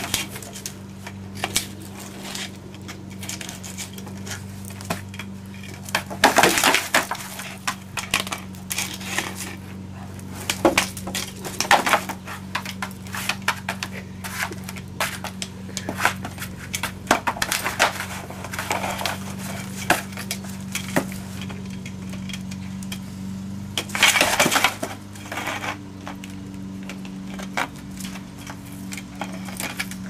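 A small dog playing with a white plastic ring from a washing machine, knocking it about, biting it and scraping it over cardboard and concrete: irregular clicks and clatters throughout, with two longer bursts of scraping, about six seconds in and again near twenty-four seconds. A steady low hum runs underneath.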